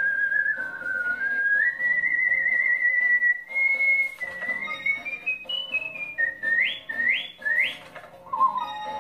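A man whistles a melody by mouth with vibrato: each held note wavers quickly in pitch as the tune steps upward. Near the end come three quick upward swoops, and a lower note begins just before the end.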